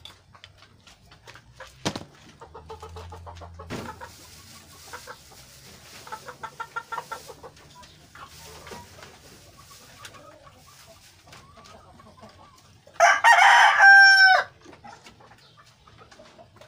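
A rooster crows once, loud, for about a second and a half, about thirteen seconds in, its call dropping in pitch at the end. Before it come softer clucking of chickens and two sharp knocks.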